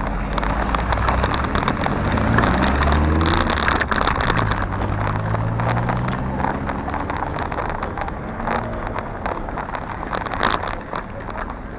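A motor vehicle driving close by, its engine note rising and falling over several seconds, over steady road noise.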